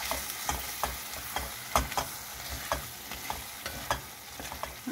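Steel spatula stirring a thick, simmering potato curry in a stainless steel pan, clicking and scraping against the metal many times in an uneven rhythm.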